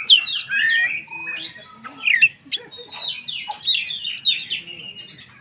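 Oriental magpie-robin (kacer) in vigorous full song: a fast, unbroken run of varied whistles, slurred rising and falling notes and chips, with a short harsh rasping note a little past the middle.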